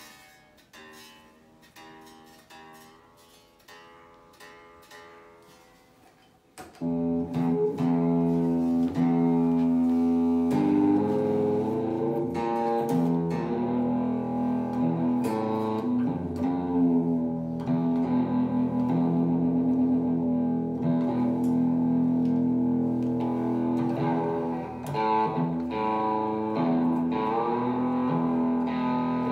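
Chibson Firebird copy electric guitar: a few quiet single plucked notes, then about seven seconds in it comes in loud through an amplifier, playing ringing, sustained notes and chords.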